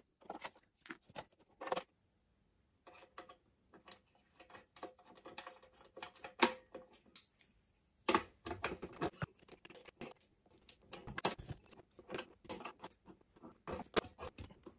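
Small metal fittings clicking and clinking by hand as a Foster quick-connect gas coupling is tried on a welding machine's fitting. The taps are sparse at first, with a short pause about two seconds in, and come thicker in the second half.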